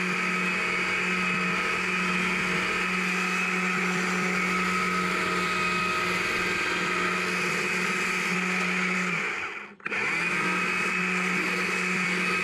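Electric chainsaw running steadily at full speed while making angle cuts into a small log. It stops for a moment about ten seconds in and starts again.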